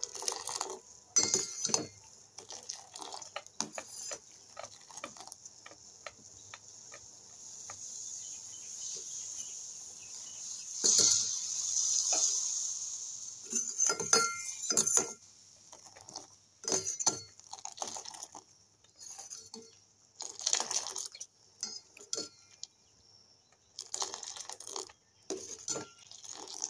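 Steel ladle scooping milk tea and pouring it back into a stainless steel pot to froth it: repeated clinks of ladle on the pot rim and sides, between splashing pours of liquid.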